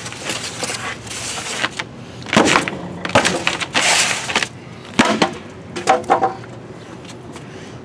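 Pink extruded-polystyrene (XPS) foam insulation board being snapped and broken apart by hand, giving a run of crunching cracks with a sharp snap about five seconds in.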